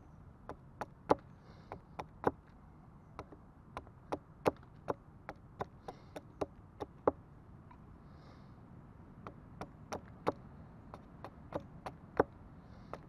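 Sharp chops of a small hatchet striking a green stick, carving a point on it, about one to two blows a second with a pause of about two seconds midway.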